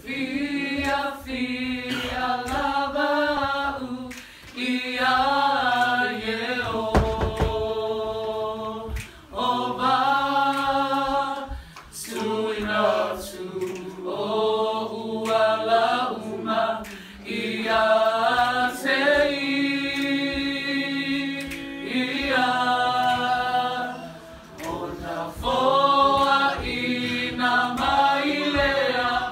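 A small mixed group of men's and women's voices singing a Samoan hymn in harmony, without instruments, in phrases of a few seconds with short breaks for breath between them.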